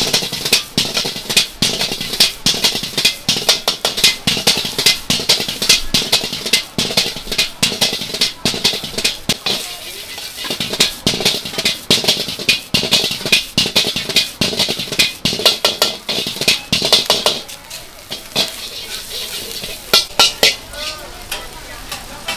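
A metal spatula clangs rapidly and irregularly against a wok as fried rice is stir-fried, over a frying sizzle. The strikes thin out for a few seconds late on, then come back with a couple of loud clangs.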